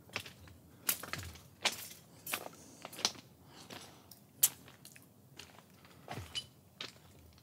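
Footsteps crunching over gravel railway ballast and scattered broken debris at a walking pace, about one step every 0.7 s, with one sharper crack a little past halfway.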